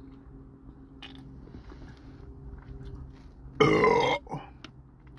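A man belching loudly once, a throaty burp about half a second long, followed by a short smaller one.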